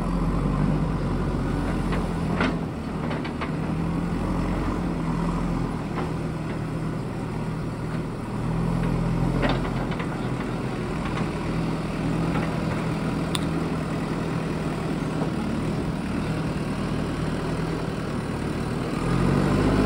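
Diesel engine of a JCB backhoe loader running steadily at low revs, with a few faint knocks and clicks, getting a little louder near the end.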